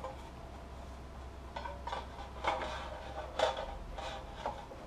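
Sheet-metal cover of a QJE PS3010 bench power supply clinking and scraping as it is handled and slid back onto the chassis: a handful of light metallic knocks, the loudest about two and a half and three and a half seconds in.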